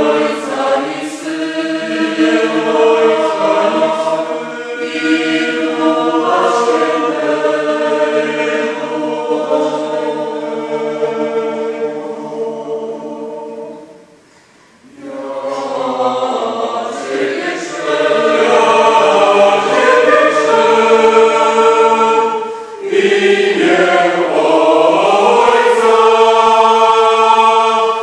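Mixed choir of women's and men's voices singing, breaking off briefly about halfway through and then resuming, louder in the second half.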